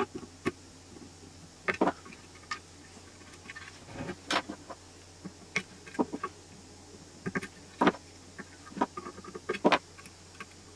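Side cutters snipping the enamelled copper coil wires of a Fisher & Paykel Smartdrive washing-machine stator, with the stiff wires clicking as they are bent and spread by hand. The result is a string of about ten irregular, sharp metallic clicks and snips.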